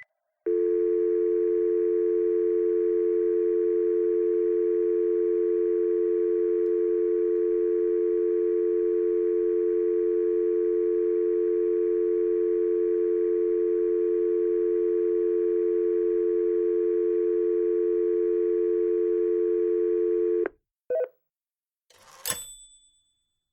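Telephone dial tone: a steady two-note tone held for about twenty seconds, then cut off suddenly. A short beep follows, then a click near the end.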